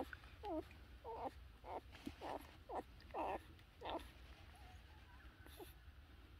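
Newborn Doberman puppies crying: a string of short whimpering cries that rise and fall in pitch, about two a second, stopping about four seconds in.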